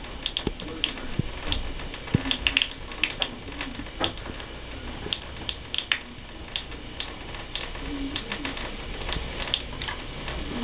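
Cat drinking from a bathtub faucet, scooping water with her paw and lapping it: irregular wet clicks and small splashes, several a second, uneven in spacing, over a low steady hum.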